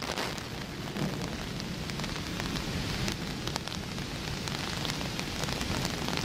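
Steady heavy rain falling, with wind rumbling on the microphone and scattered sharp taps of drops striking close by.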